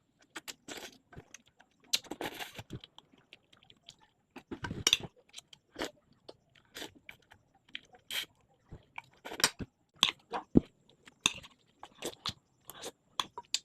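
A person eating mie goreng (Indonesian fried noodles) close to the microphone: irregular short chewing and mouth sounds, with a couple of longer ones about two and five seconds in.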